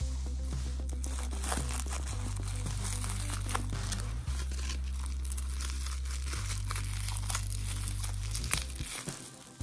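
Packaging crinkling and tearing as a parcel is worked open, over background music whose deep bass notes change about every two seconds and fade out near the end.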